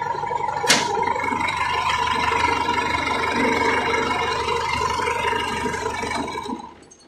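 John Deere 2450 tractor's diesel engine running steadily, with one sharp click about a second in. It winds down and stops near the end. It runs because it is no longer stuck in gear, since a 2450 stuck in gear won't start.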